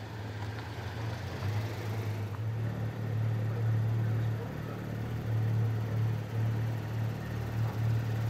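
Several Porsche 991 GT3 naturally aspirated flat-six engines running at low revs as the cars roll slowly past in a queue. They make a steady deep drone that grows louder about two seconds in, with no hard revving.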